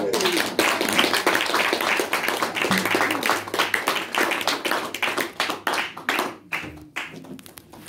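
Small audience applauding, dense hand-clapping that thins to a few scattered claps near the end.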